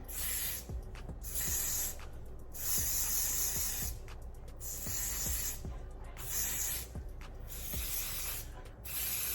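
Aerosol lace-wig adhesive spray being sprayed in short bursts around the hairline, about seven hissing spritzes with brief pauses between them.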